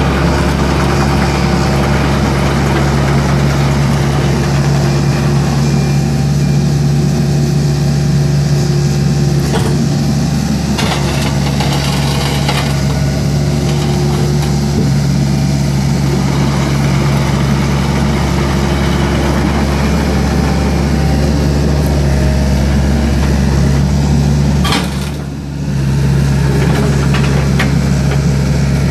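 Yanmar V1075A compact excavator's four-cylinder diesel engine running steadily while the boom and bucket are worked, with higher-pitched tones coming and going over it. A few knocks about ten seconds in, and a brief drop in loudness near the end.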